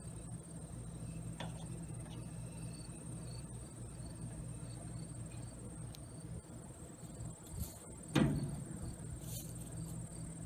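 Crickets chirring steadily in a continuous high trill. About eight seconds in, a single sudden dull thump with a short falling low boom.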